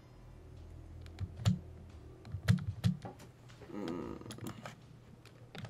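A handful of separate sharp clicks and taps from a computer keyboard and mouse close to the microphone, several with a dull knock. The loudest come about two and a half to three seconds in.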